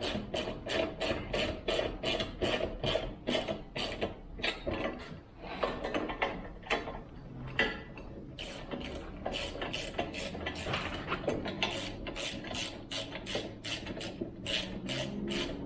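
Socket wrench ratchet clicking in quick runs, about five clicks a second with a few short pauses, as 13 mm bolts on a chainsaw mill are turned.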